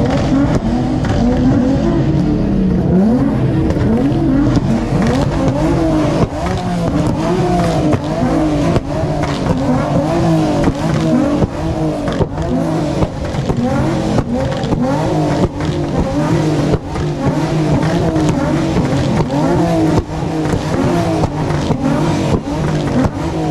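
Car engine revved over and over in quick blips, its pitch rising and falling about once or twice a second, with frequent sharp cracks through it.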